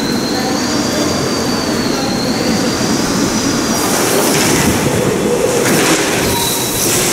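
Cyclone-force wind blowing against glass lobby doors: a loud, steady rush with a thin high whistle in the first few seconds and stronger gusts about four and six seconds in.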